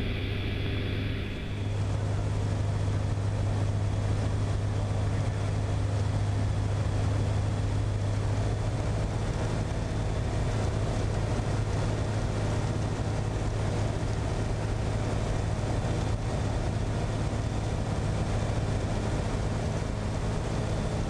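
Ikarus C42 microlight's engine and propeller droning steadily in cruise, with wind rush through the cabin. About a second and a half in, the sound turns brighter and hissier.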